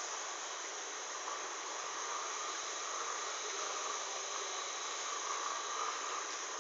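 Steady hiss of background noise with no distinct events.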